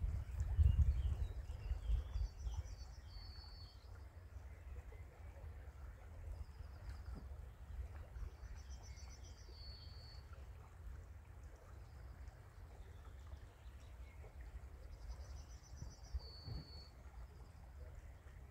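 A songbird singing the same short high song three times, about every six seconds: a quick trill that drops to a brief held note. Underneath runs a steady low rumble, loudest in the first couple of seconds.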